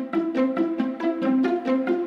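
Background music: a quick, even run of short pitched notes, about six a second.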